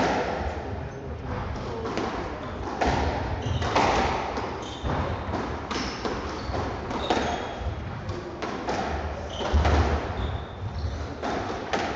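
Squash rally: a run of sharp hits as the ball is struck by rackets and smacks off the court walls, with short high squeaks of court shoes on the wooden floor between them.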